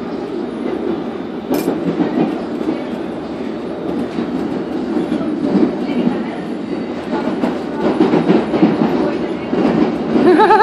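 London Underground S Stock walk-through train running, heard from inside the carriage: a steady rumble with wheel-on-rail noise, and a single sharp click about one and a half seconds in.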